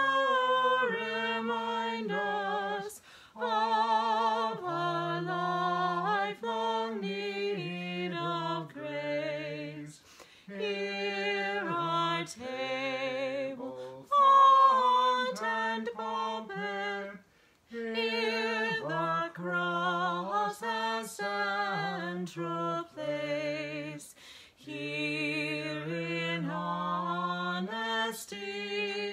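A man singing a hymn solo and unaccompanied, holding each note with a slight vibrato and pausing briefly between lines.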